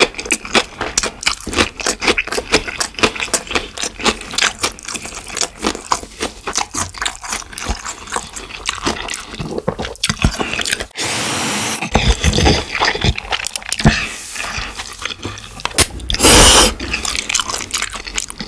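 Close-miked eating of black-bean-sauce noodles (jjajangmyeon): wet chewing, lip smacks and clicks of the mouth. Noodles are slurped at length about eleven seconds in, and there is a louder slurp near the end.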